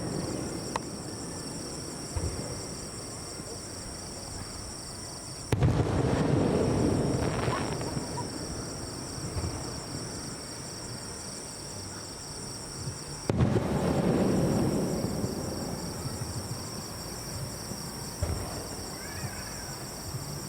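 Aerial fireworks shells bursting overhead: two loud booms, one about five seconds in and one about thirteen seconds in, each followed by a long rolling rumble that slowly fades.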